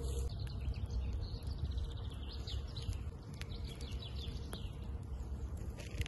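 Wood fire crackling in an open fire pit, with a few sharp pops, while songbirds sing quick chirps and trills.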